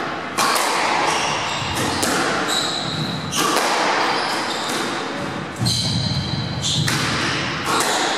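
Squash rally: the ball cracking off rackets and the court walls, sharp echoing hits about once a second, with high squeaks of shoes on the wooden floor between the hits.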